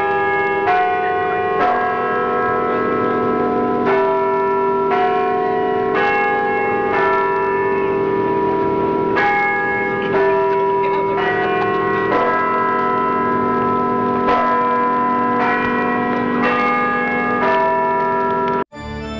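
Bells ringing, a new strike about every second with the tones of earlier strikes still sounding beneath; the ringing cuts off suddenly near the end.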